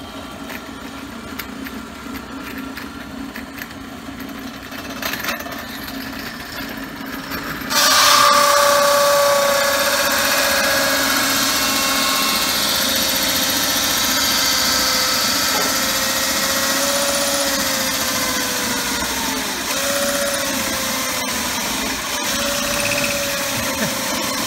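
Drill press motor running, then about eight seconds in a 2-inch hole saw bites into a thin B20 crash cymbal. It gives a loud, harsh cutting noise with the cymbal ringing in several tones that waver and dip in pitch as the cut goes on.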